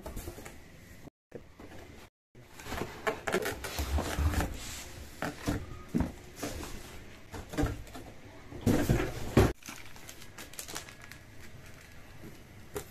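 Cardboard boxes being handled: rustling, scraping and knocking of corrugated cardboard as a laptop box is pulled out of its shipping carton and a cardboard insert is lifted out. The handling is loudest about nine seconds in and turns to lighter rustling near the end.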